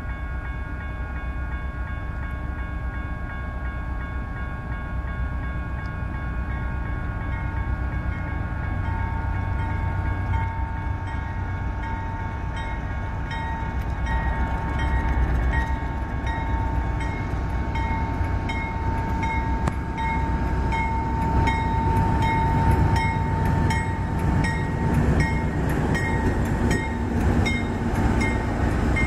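Pair of GE C44-9W diesel-electric locomotives approaching and passing on a manifest freight, their engine rumble growing louder, while grade-crossing bells ring steadily. From about two-thirds of the way in, wheels click evenly over the rail joints as the lead unit reaches the crossing.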